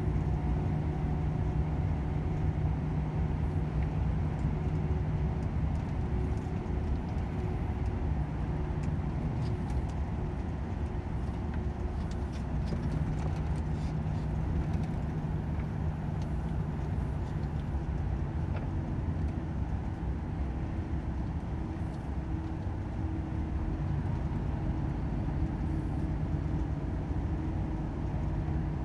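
Volvo FH 500 truck's 13-litre inline-six diesel running steadily under way, an even low drone with a low rumble beneath.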